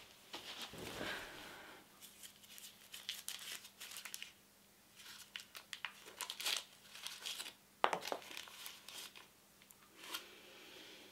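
A small packet's wrapper crinkling and crackling as fingers handle and fold it, in irregular bursts with one sharper crackle about two-thirds of the way through.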